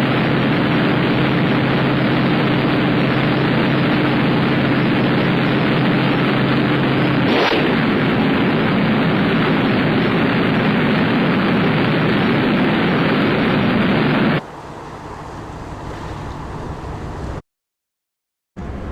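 Ship's horn sounding one long, low blast over heavy rushing noise; the tone stops about seven seconds in while the rushing goes on, then drops sharply in level about two-thirds of the way through.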